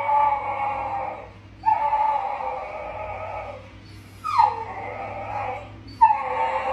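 Small dog whining in four long, drawn-out calls with short pauses between them, the third starting with a downward slide: whining for attention.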